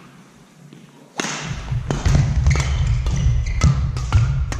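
Badminton play on a hall court: from about a second in, a quick series of sharp racket hits and footfalls over a heavy low thudding, with short high squeaks of shoes on the floor.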